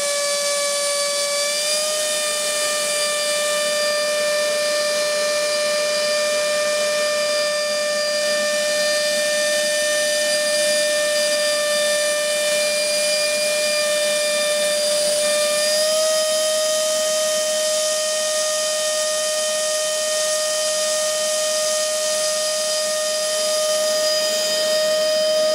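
Battery-powered electric motor and propeller of an RC model seaplane running steadily at fixed throttle on a ground run-up: a steady high whine that steps slightly higher in pitch about two seconds in and again past the middle.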